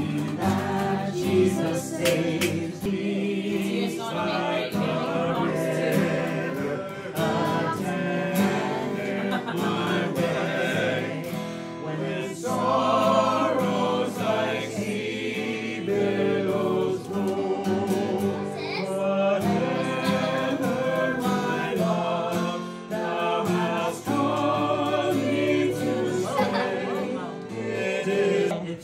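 A song with several voices singing together over instruments.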